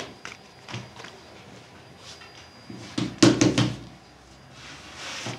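A few small clicks, then about three seconds in a quick run of five or six loud thumps and knocks, hard objects being handled or set down, followed by a soft rustling hiss.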